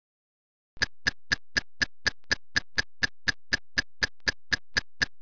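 Steady, evenly spaced clock-style ticking, about four ticks a second, starting just under a second in: a timer tick sound effect counting off elapsed time.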